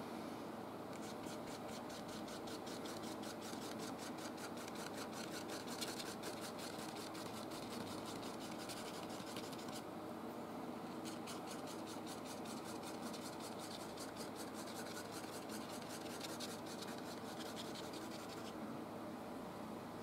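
Paintbrush scrubbing oil paint onto canvas in quick back-and-forth strokes, about five a second, with a short pause about halfway through and stopping near the end.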